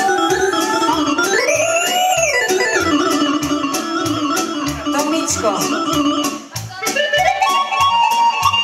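Live band music in an instrumental break: a synthesizer keyboard lead playing gliding, bending notes over a steady drum beat of about two beats a second.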